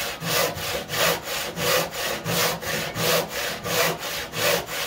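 Hand saw whose teeth cut on both the push and the pull, sawing across wooden table legs clamped together in quick, even rasping strokes, about three a second.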